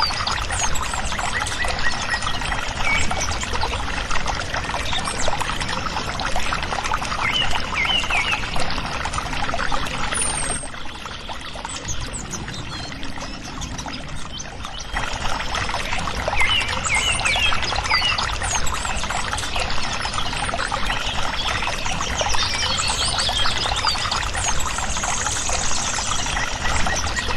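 Water pouring steadily from a thin plastic tube and splashing onto a plastic toy backhoe loader, a little softer for a few seconds in the middle.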